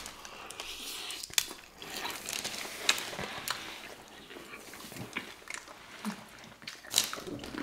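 Two people chewing a burrito bowl and tortilla chips: scattered wet mouth clicks and short crunches, the sharpest near the end.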